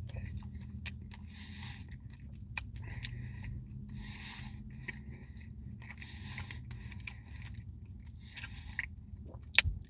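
Close mouth sounds of a person eating a Blizzard of soft-serve ice cream with brownie pieces: wet chewing repeating about once a second, with a few sharp clicks.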